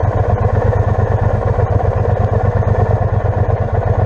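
Triumph T120's parallel-twin engine running steadily with an even, fast beat.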